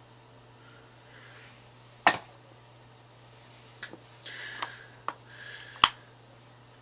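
Makeup items being handled close to the microphone: two sharp clicks about two and six seconds in, a few lighter ticks and soft rustling between them, over a steady low hum.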